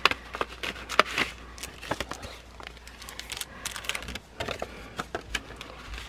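Packaging being handled and opened by hand: irregular clicks, taps and crinkly rustling, with sharper clicks about a second in.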